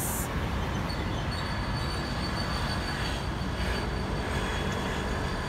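Road traffic on a wide city street: a steady rumble of engines and tyres, with a thin high-pitched whine that comes in about a second in and fades a few seconds later.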